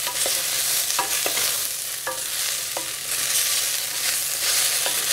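Diced potatoes, celery, carrots and onions sizzling in hot canola oil in a saucepan as a wooden spoon stirs them. A few short scrapes of the spoon against the pan come through the steady sizzle.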